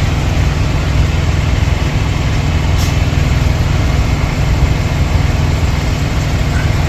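Cummins X15 inline-six diesel idling steadily, its drive belt still running on the seized, overheating AC compressor.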